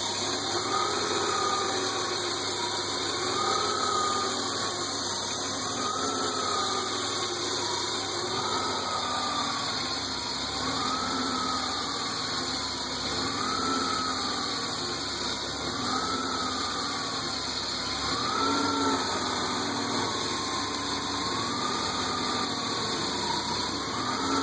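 BMW E36 325i's inline-six engine idling steadily, with a whine that rises and falls in pitch about every two seconds.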